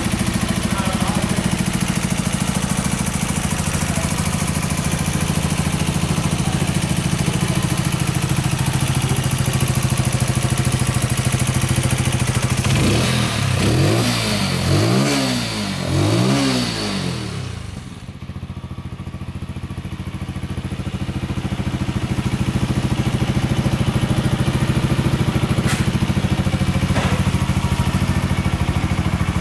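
Keeway Superlight 125's single-cylinder four-stroke engine idling steadily, revved three times in quick succession about midway and then settling back to idle.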